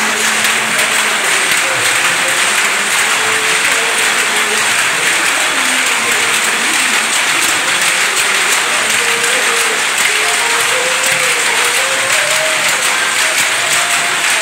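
A shed full of power looms running together: a loud, dense, unbroken clatter of the looms' beating and picking motions.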